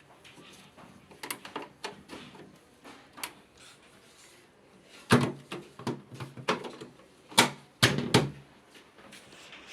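Light clicks and knocks of washing-machine parts being handled during a repair, then a handful of louder knocks, the loudest about five seconds in and again near the end.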